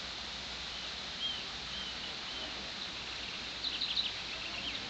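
Wild birds calling over a steady background hiss: a few short arched call notes in the first half, then a quick run of sharp chirps near the end.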